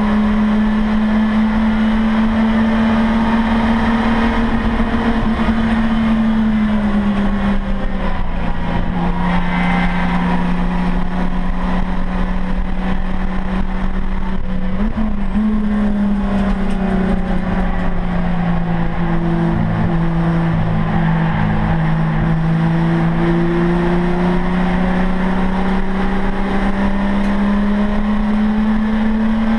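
Racing saloon car's engine heard from inside the cockpit, running hard with a loud, steady drone. Its pitch sags slowly through the middle and climbs again near the end.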